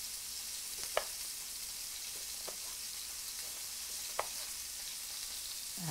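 Pork belly sizzling steadily in a frying pan, with four light knife taps on a cutting board, about a second and a half apart, as small citrus fruit is sliced.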